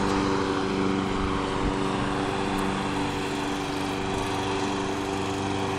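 Riding lawnmower's small engine running at a steady speed while it tows a rider on a skateboard, growing slightly fainter after a couple of seconds.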